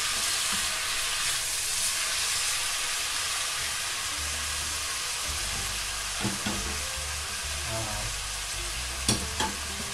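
Onion, pepper, leek and tomato sautéing in a pot, a steady frying sizzle. A few light knocks come through in the second half.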